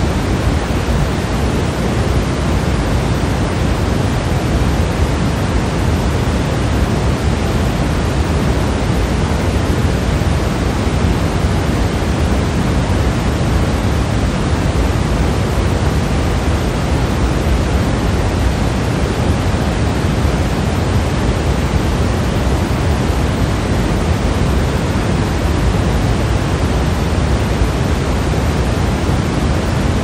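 Steady, unchanging pink noise: an even rushing hiss, fuller in the low end and softer toward the top.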